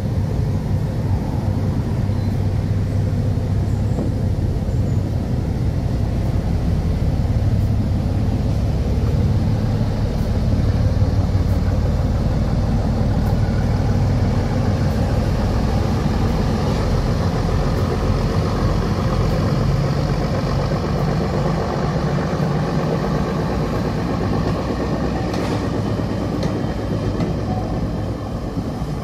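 Clayton Class 17 diesel locomotive heading a heritage passenger train beneath the bridge, its engine running with a steady low rumble. The coaches follow, rolling past on the track.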